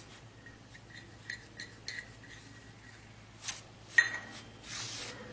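Light clinks of a spoon against a bowl while oil is added to ragi and wheat flour, with one sharper clink about four seconds in, then a soft rubbing of the flour being mixed near the end.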